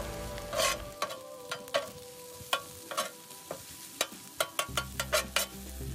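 Metal spatula clicking and scraping irregularly on a Blackstone 22-inch griddle's steel top while mixing fried rice, with the rice sizzling under it.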